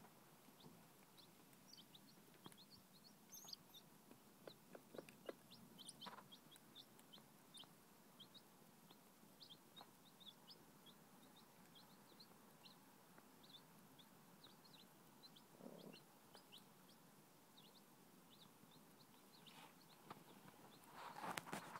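Newborn chicks peeping faintly, with many short high cheeps scattered throughout. A broody hen gives a single low cluck about two-thirds of the way through.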